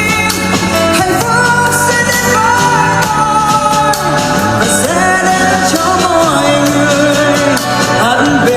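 A pop song: a sung vocal melody with held, gliding notes over a full band backing with a steady beat.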